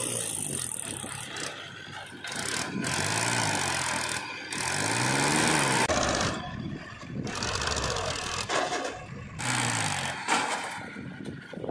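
Powertrac 434 DS tractor's diesel engine working under load as it tows a trolley heaped with mud forward over soft dug ground. Its pitch rises and falls with the throttle, most clearly around the middle.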